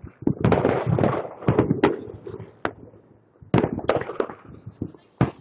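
Fireworks going off: rapid strings of sharp pops and crackles in two clusters, one about half a second in and another around three and a half seconds in.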